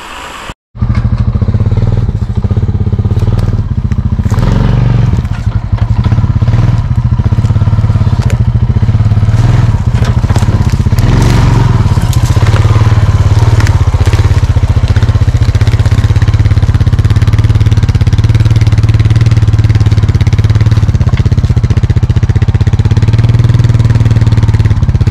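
Honda Foreman 400 quad bike's single-cylinder four-stroke engine running steadily as it is ridden with a load of firewood on the rack. Crackling and clatter sound over the engine in the first few seconds.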